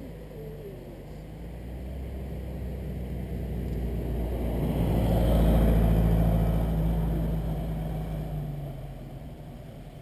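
A historic car's engine passing by at a steady pitch: it grows louder, is loudest a little past halfway, then fades as the car drives off.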